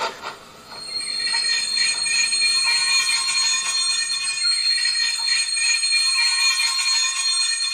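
The ESU LokSound 5 sound decoder in a gauge 1 model of a Prussian T3 steam tank locomotive playing its brake sound as the model slows: a long, high metallic brake squeal made of several steady shrill tones, starting about a second in.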